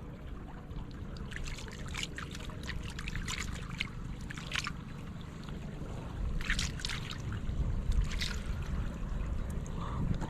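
Shallow water splashing and sloshing in irregular bursts, in two spells, over a steady low rumble.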